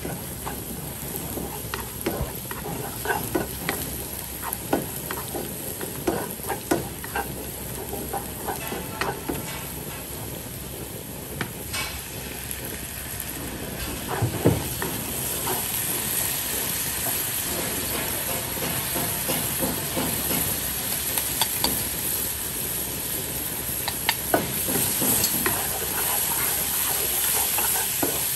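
Chopped spring onions sizzling in oil in a wok while a wooden spatula stirs them, its strokes knocking and scraping on the pan. The sizzle grows steadier and louder about halfway through.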